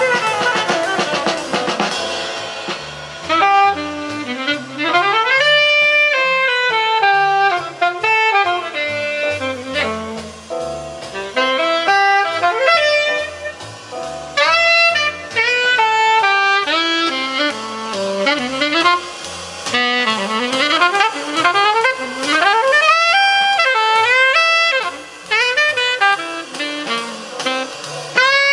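Jazz with a saxophone lead over a stepping bass line, played back through Dynaco A-10 bookshelf loudspeakers driven by a Technics SE-A100 stereo power amplifier.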